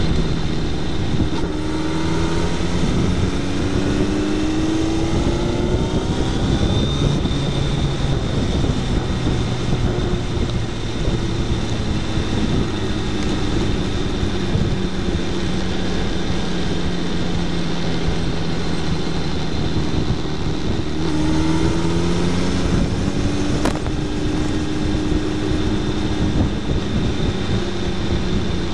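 Suzuki Hayabusa's inline-four engine running at speed, heard from a fairing-mounted camera under heavy wind and road rush. The engine note rises in pitch over the first few seconds and again about three-quarters of the way through as the bike accelerates, holding steadier in between.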